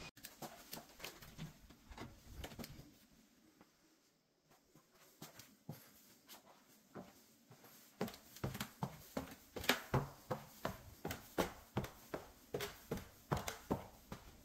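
Footsteps through a room: scattered steps at first, a quiet stretch, then a steady walking pace of about two to three steps a second from about eight seconds in.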